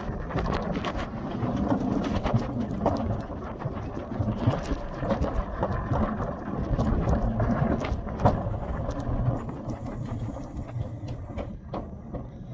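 Summer toboggan sled running along its track: a steady rumble from the wheels with scattered clicks and knocks, growing quieter over the last few seconds.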